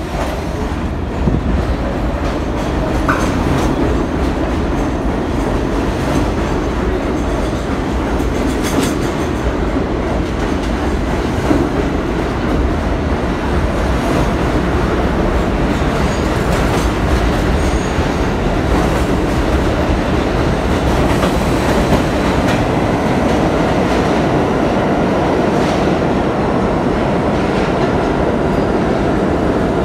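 R32 subway train's stainless-steel cars running along the platform: a steady loud rumble with occasional clacks from the wheels.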